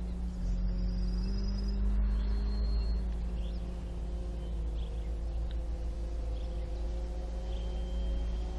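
Brushless electric motor and propeller of a 2100 mm RC Cessna 182 Skylane droning steadily in flight, its pitch rising for a couple of seconds about a second in and then settling. Low wind rumble on the microphone underneath.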